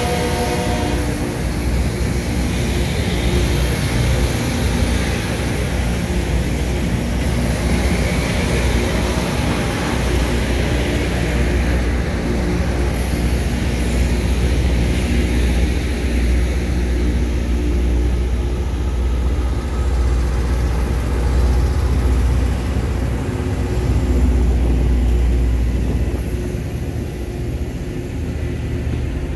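Loram rail grinder train running past, a loud steady roar with a deep rumble underneath. The tones of a horn fade out in the first second.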